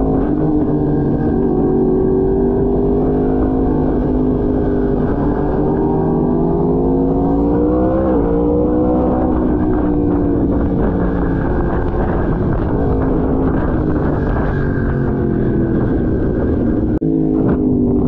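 Sportbike engine running under way, its pitch climbing as it accelerates, dropping sharply at an upshift about eight seconds in, then easing off and climbing again. The sound breaks off abruptly near the end.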